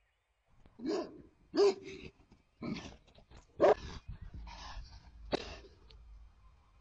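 Livestock guardian dogs giving short, deep alarm barks, about six of them roughly a second apart, warning off coyotes in the fields nearby.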